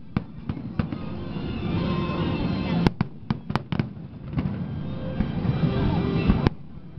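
Fireworks going off: a series of sharp bangs, spaced out early on, then a quick cluster of four about three to four seconds in and another bang near the end. A steady background din runs between them.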